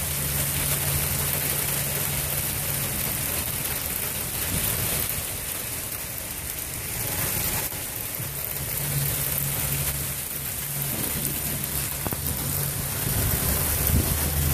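Heavy rain pouring down on pavement and parked cars in a strong thunderstorm, a steady, dense wash of noise. A low steady hum sounds underneath, dropping out for a few seconds in the middle.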